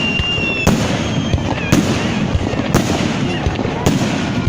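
Fireworks salute: four loud bangs of shells bursting high overhead, about one a second, over continuous crowd voices.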